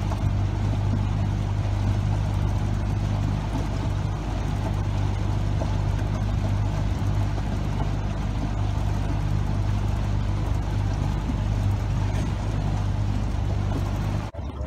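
A boat motor running steadily under way, a low even hum with a wash of wind and water noise; it cuts off abruptly near the end.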